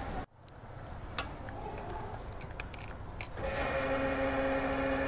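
A few faint sharp clicks, then a steady hum with a low tone starting about three and a half seconds in, as a fuel dispenser's pump starts for refuelling.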